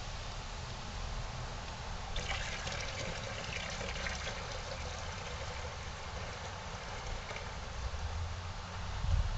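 Apple cider pouring from a plastic gallon jug into a plastic fermenting bucket, a steady splashing stream that starts about two seconds in.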